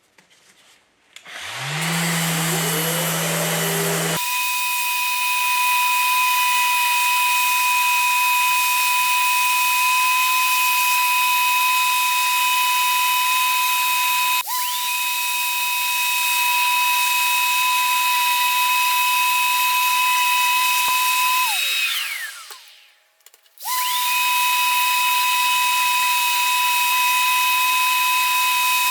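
Electric random orbital sander running with a steady high whine while sanding the derusted scroll saw base. About 21 seconds in it is switched off and winds down with a falling pitch, then starts again about two seconds later. A shorter, lower hum with a rising tone comes before it, in the first few seconds.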